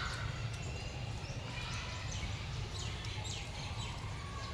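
Birds chirping in short, quick, falling notes over a steady low rumble.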